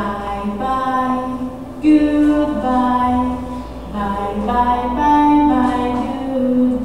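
A woman singing a children's goodbye song unaccompanied, in a run of held notes with short breaks between phrases.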